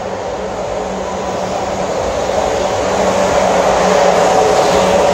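A Class 444 Desiro electric multiple unit running through the station, its noise growing steadily louder as it comes closer, with a steady hum and a few held tones over the rumble.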